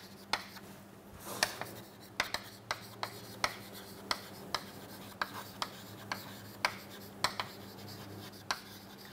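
Chalk writing on a chalkboard: irregular sharp taps and short scrapes as the words are written, over a faint steady low hum.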